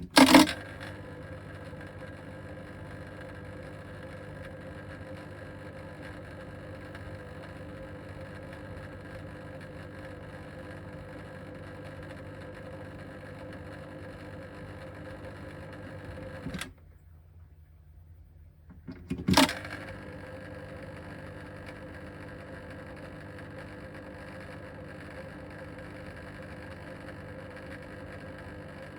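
Eheim 2217 canister filter motor running with a steady electrical buzz, an abnormal noise that the owner puts down to unevenly wound motor coils. It starts with a loud knock, cuts off about two-thirds of the way through, and after a pause of a few seconds starts again with another loud knock.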